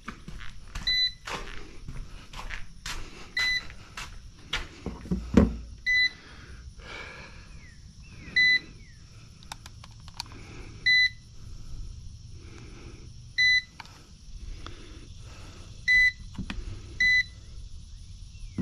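An RC helicopter's low-battery warning beeper sounds a short high beep about every two and a half seconds. Plastic clicks and knocks come from the helicopter being handled, with a louder thump about five seconds in.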